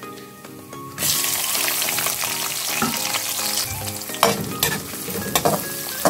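Sliced onions hitting hot oil with whole spices, a loud sizzle starting suddenly about a second in. Scrapes and knocks of stirring against the pot come in over the second half.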